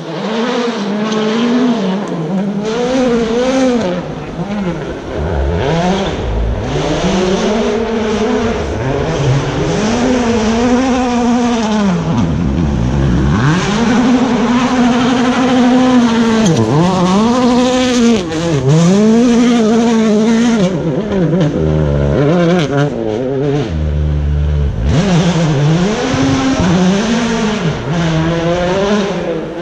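Rally car engine at full stage pace, loud, its pitch climbing through each gear and dropping back at every shift, over and over, as the car drives past.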